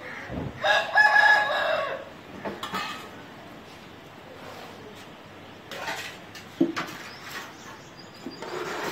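An Aseel rooster crowing once, loud and drawn out for over a second, starting about half a second in. It is followed by a few short, quieter clucks and calls.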